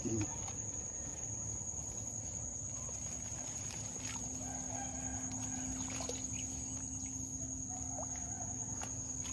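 Insects trilling steadily in one unbroken high pitch, over a low outdoor rumble; a low steady hum joins about four seconds in.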